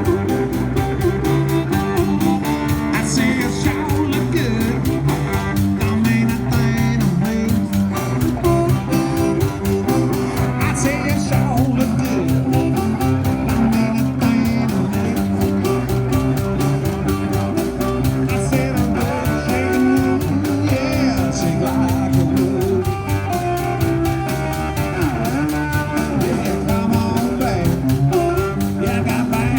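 Live street-busker music: guitar playing over a steady, fast percussion beat.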